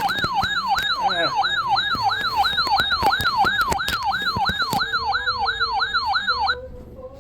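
Electronic siren-style alert tone played over a broadcast: a fast, steady warble of repeated falling sweeps, about three and a half a second, that cuts off suddenly about six and a half seconds in.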